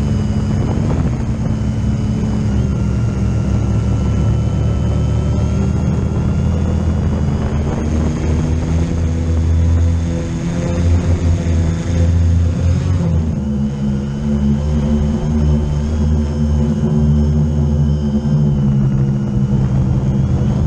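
Multirotor drone's electric motors and propellers whirring close up, heard through a camera mounted on the drone. The steady hum comes up as the motors spin up at the start, and its pitch shifts about two-thirds of the way through as the throttle changes and the drone lifts out of the grass.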